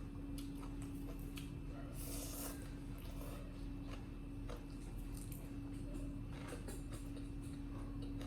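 Scattered small clicks and rustles of monkeys handling and eating food, with a brief hiss about two seconds in, over a steady hum.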